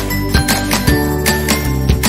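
Background music with a steady beat and jingling percussion over held notes.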